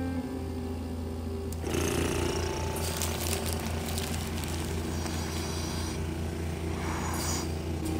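A medical suction machine switches on about two seconds in and runs with a rapidly pulsing motor hum and a hiss of air drawn through the catheter.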